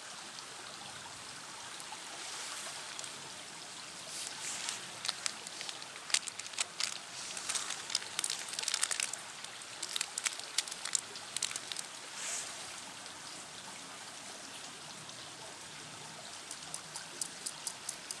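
Wood pellets burning in a small steel fire stand: irregular crackles and pops over a steady hiss, thickest in the middle and again near the end.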